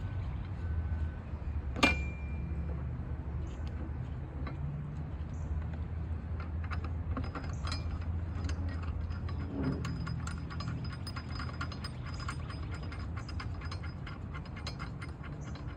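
Hand wrench working a bolt under a tipped-up lawn mower deck: a sharp metal clink about two seconds in, then a long run of rapid ratchet clicks from about six seconds on, over a steady low rumble.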